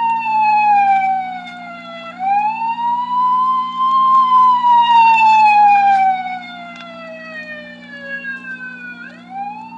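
Police car siren wailing, played from a 1972 sound-effects record. The pitch climbs quickly, then slides slowly down over several seconds, and climbs again twice, about two seconds in and near the end. It gets quieter about six seconds in, and a steady low hum runs underneath.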